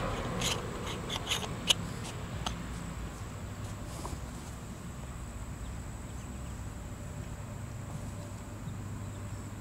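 A few light clicks and taps as a fisheye lens is taken out of its packaging, all within the first two and a half seconds, over a steady low outdoor rumble.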